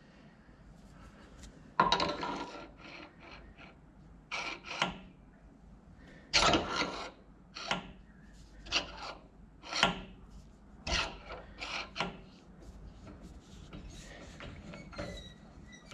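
A series of short, irregular metal-on-metal rubbing and scraping strokes as a Morse taper master sleeve is twisted and slid by hand on a freshly turned Morse taper 3 arbor held in the lathe chuck, checking the taper's contact.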